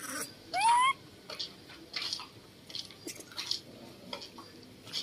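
A baby macaque gives one short squeal that rises in pitch, about half a second in, followed by scattered soft clicks and rustles.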